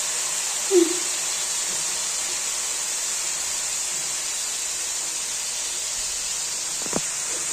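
Shredded cabbage and carrots frying with chicken in a stainless steel pan: a steady sizzle, with one sharp tap near the end.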